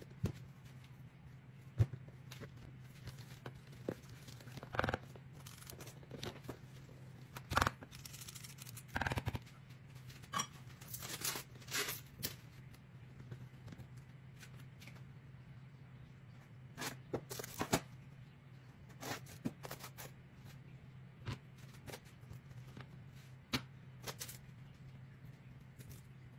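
Scattered kitchen handling noises: a spoon scraping and clicking against containers, and short rustles and scrapes, over a steady low hum.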